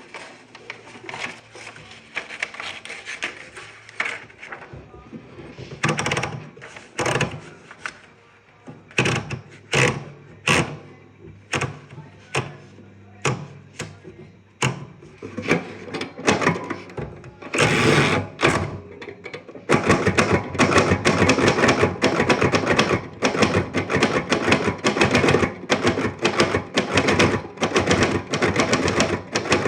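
Manual typewriter being typed on: scattered single keystrokes at first, then from about twenty seconds in a fast, continuous clatter of keys striking. A longer scraping sound comes shortly before the fast typing starts.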